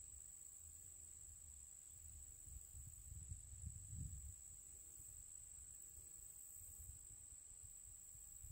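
Near silence with a faint, steady, high-pitched insect trill, like crickets in the woods. A faint low rumble rises and falls around the middle.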